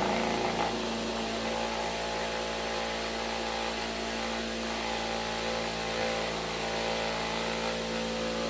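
Vibrating table buzzing steadily under a container of wet plaster, shaking air bubbles up and out of the mix around a mushroom being cast.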